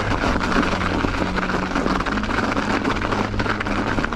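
Ibis Ripmo V2 mountain bike rolling downhill over packed snow: steady ride noise from the tyres and frame, with many small rattles and a low hum.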